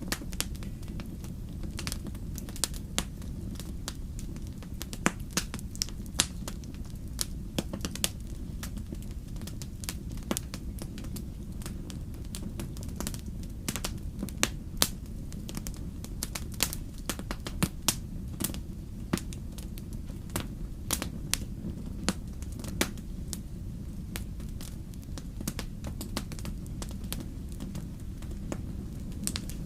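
Fire crackling in a fireplace: irregular sharp pops and snaps, several a second, over a steady low rumble.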